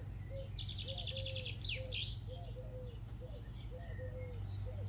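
Birds singing: a fast, high trill and a falling whistle in the first two seconds, over short low warbling notes that repeat two or three times a second.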